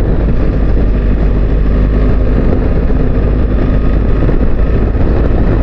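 Wind rushing over a helmet-mounted microphone, with the steady drone of a BMW R1300GS's boxer-twin engine underneath while riding at a constant speed.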